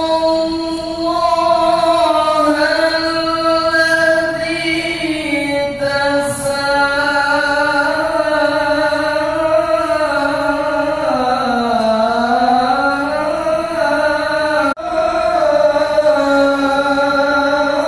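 Quran recitation (tilawah): a single voice chants in long, melodic held notes that glide up and down, sinking lower around the middle and rising again. The chant breaks off sharply once near the end, then goes on.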